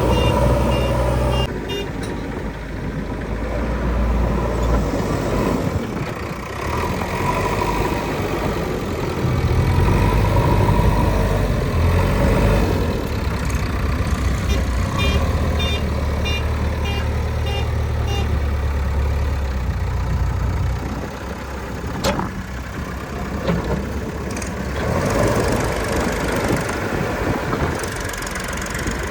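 Diesel engine of a JCB 3DX backhoe loader working while it digs and loads mud, rising and falling with load. There is a short run of high beeps in between and a sharp knock near the end.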